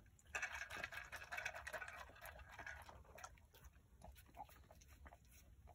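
A dog eating treats off a wooden board: faint licking, chewing and snuffling with small clicks, busiest in the first half and thinning to scattered clicks near the end.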